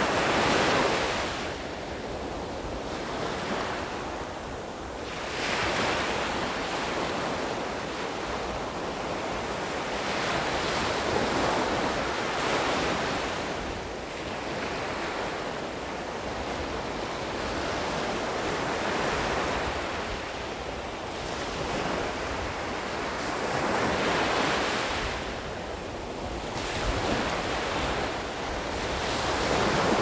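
Small sea waves breaking and washing up a sandy beach, the surf swelling and fading every few seconds.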